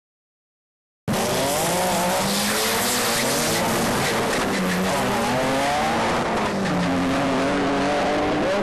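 Two drag cars, a turbocharged BMW E36 and a VW Beetle, running hard side by side down the strip. Their engine notes climb and drop again at each gear change. The sound cuts in suddenly about a second in.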